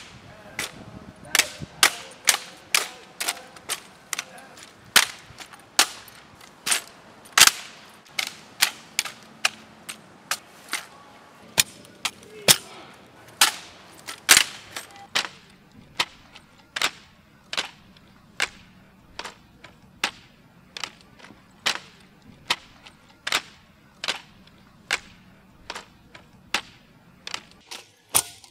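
Crisp slaps and clacks of drill rifles being handled in a precision rifle drill: hands striking the wooden stocks as the rifles snap into position. The cracks come about two a second, in an uneven rhythm.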